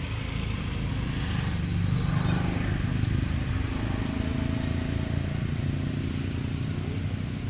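A motor vehicle engine running steadily, a little louder around two seconds in.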